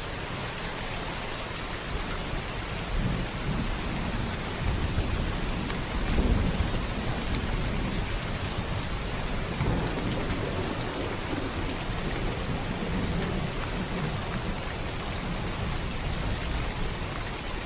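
Heavy rain falling steadily on a roof, with thunder rolling low several times; the loudest rumble comes about six seconds in.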